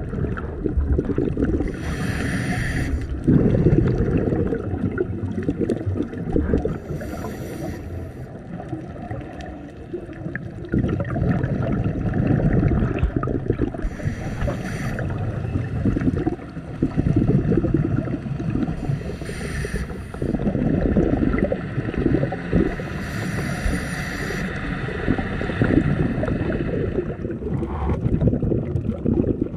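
Scuba breathing heard through an underwater camera housing: regularly spaced short regulator inhale hisses, about every four to six seconds, between longer stretches of gurgling exhaled bubbles.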